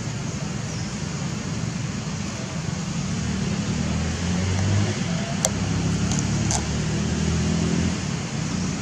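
Motor vehicle traffic: a steady road rumble with an engine hum that swells through the middle as a vehicle passes, and two sharp clicks about halfway through.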